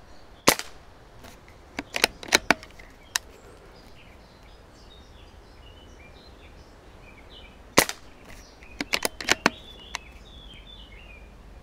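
Two shots from an Umarex/Hämmerli 850 AirMagnum CO2 air rifle in .177, sharp cracks about seven seconds apart. A second or so after each comes a quick run of smaller clicks as the bolt-action charging handle is cycled and the safety taken off.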